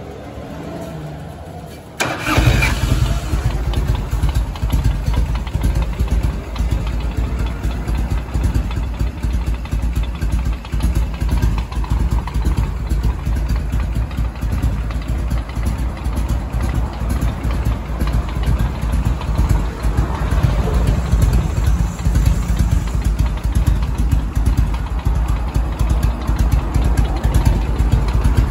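1992 Harley-Davidson FLSTC Heritage Softail Classic's carbureted V-twin, fitted with an aftermarket exhaust, cranking on the starter, then catching about two seconds in. It settles into a steady, pulsing idle.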